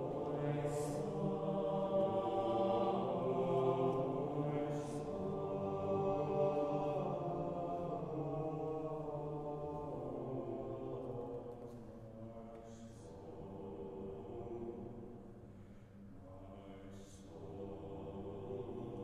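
Mixed a cappella choir singing slow, held chords, the whole choir sounding an 's' consonant together every few seconds. The singing grows quieter about twelve seconds in, then swells a little near the end.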